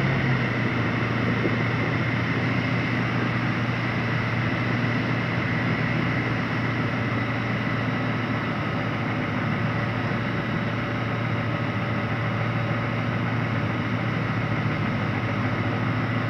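Tecnam P92 ultralight's engine throttled back to idle for a simulated engine failure, a steady drone mixed with propeller and airflow noise in the cockpit.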